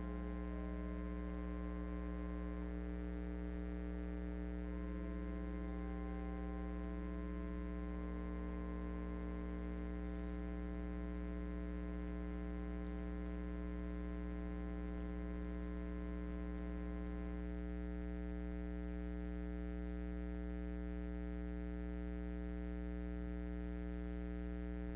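Slow music of long-held chords that change every few seconds, over a steady low electrical hum.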